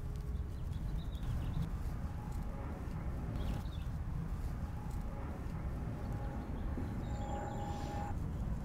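Steady low outdoor background rumble, with a few faint brief tones in the middle and near the end, and faint rustles.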